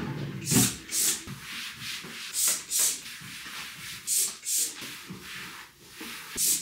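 Cloth wiping the inside of a dresser drawer with bleach spray: short rubbing strokes that come in pairs about every one and a half to two seconds.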